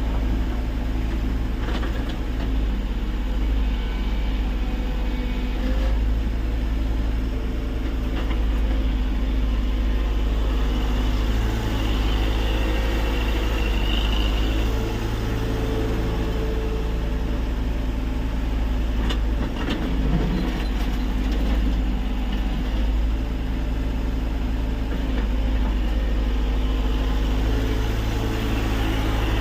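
Tata Hitachi EX70 excavator's diesel engine running steadily, its note shifting in strength as the machine works, with a brief higher whine and a few short knocks.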